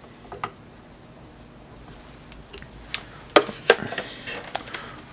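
Small screws and the metal-and-plastic housing of a Baratza Vario burr grinder being handled: a few scattered sharp clicks and light knocks as the new burr screws are dropped into place, the loudest two close together about three and a half seconds in.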